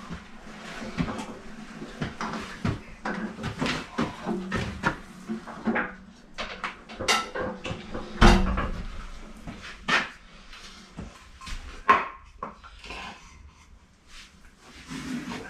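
Irregular clanks, knocks and scraping as a heavy 1964 Bridgeport milling machine is worked on a hand pallet truck and wooden timbers are set under its base. A single heavy thud about eight seconds in is the loudest, and the knocks thin out near the end.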